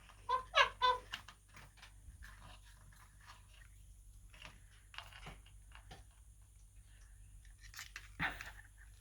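Pet parrot giving three short, quick pitched chuckling calls, then light scattered clicks and dabbling noises as it bathes in a water dish, with a louder rustling burst near the end.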